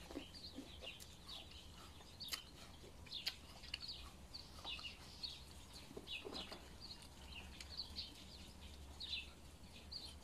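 Chewing and crunching green apple, with a few sharp crunches, while small birds chirp steadily in the background.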